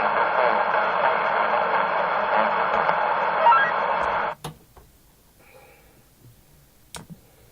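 CB radio receiver hissing with static and faint garbled voices for about four seconds. The signal then cuts off abruptly with a click, leaving near silence, and another click comes near the end.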